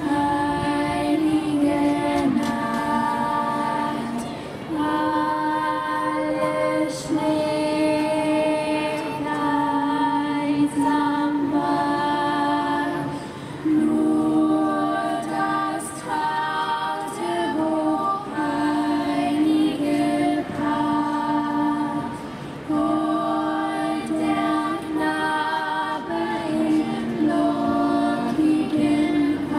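Youth choir singing a cappella in harmony, high voices holding long notes in phrases a few seconds long with brief breaks between them.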